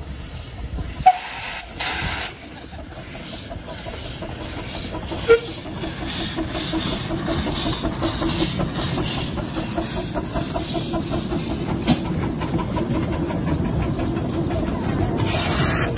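10¼-inch gauge miniature steam locomotives hauling a passenger train past at close range: steam hissing and the train running along the track, growing louder as it draws near. A short whistle toot sounds about five seconds in.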